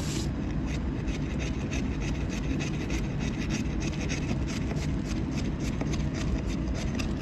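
Chef's knife chopping garlic cloves on a cutting board: quick knife taps on the board, several a second, over a steady low rumble.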